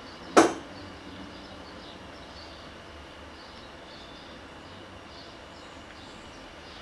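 A single sharp thump about half a second in, from fists brought down onto a desk, then only a steady low background.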